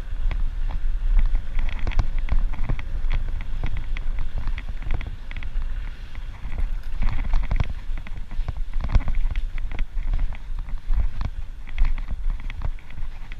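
Wind buffeting the microphone of a bicycle rider on the move, with a steady low rumble and a running patter of clicks and rattles from the bike going over rough ground.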